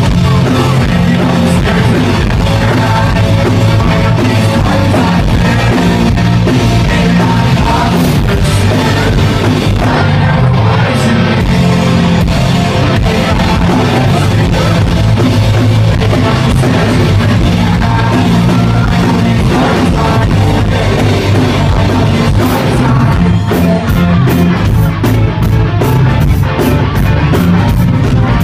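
Rock band playing live and loud: electric guitars, bass, drums and singing. Near the end a steady run of sharp hits, about two or three a second, cuts through.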